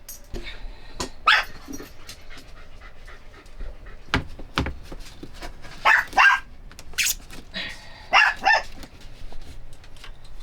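A dog barking in short, sharp barks: one about a second in, then quick pairs around six and eight seconds in.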